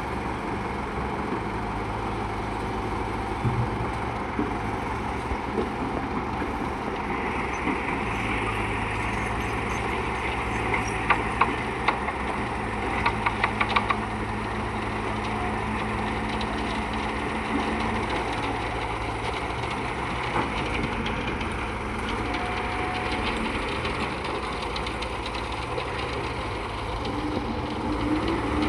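An engine running steadily, with a quick cluster of sharp knocks about halfway through.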